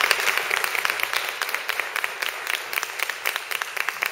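Audience applauding, many hands clapping, the clapping thinning out a little toward the end.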